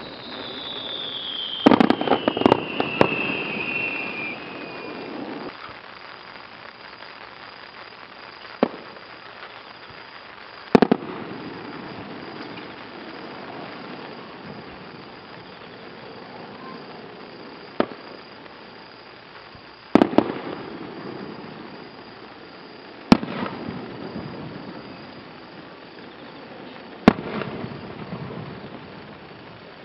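Aerial firework shells bursting: a quick cluster of bangs about two seconds in, then single bursts every few seconds, each followed by an echoing rumble. A whistle falls in pitch over the first few seconds.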